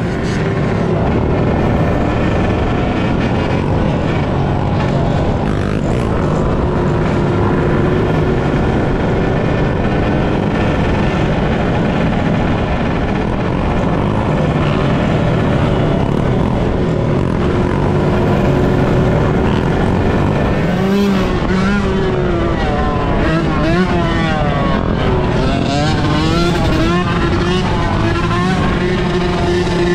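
Engines of many dirt bikes and ATVs running together in a group ride, with several revving up and down in the last third.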